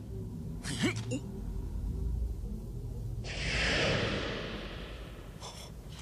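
Anime soundtrack: a low rumble with a short breathy gasp about a second in. About three seconds in, a sudden loud rushing whoosh sound effect sets in and fades away over a couple of seconds.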